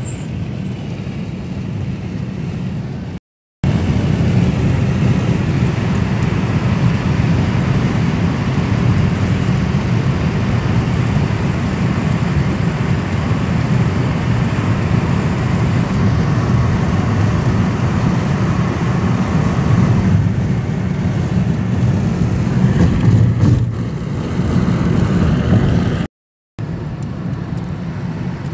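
Steady low rumble of tyres and engine heard from inside a car cruising on a motorway. It is louder while the car runs through a road tunnel. The sound drops out briefly twice, a few seconds in and near the end.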